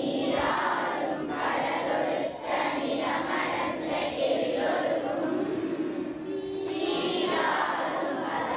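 A large group of children singing together in unison, many voices at once.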